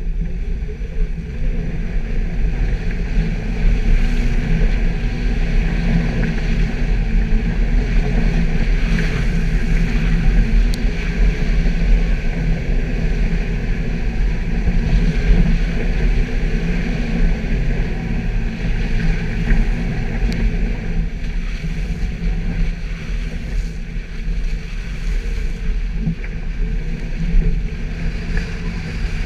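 Suzuki Jimny's engine running steadily while driving off-road.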